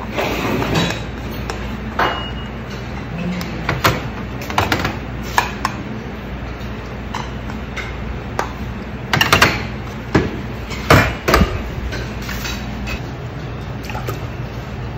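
Rice paddle scraping and knocking against a large electric rice cooker's inner pot, with small bowls clinking, as cooked rice is dished out. Short sharp knocks come scattered throughout, bunched about nine and eleven seconds in, over a steady low hum.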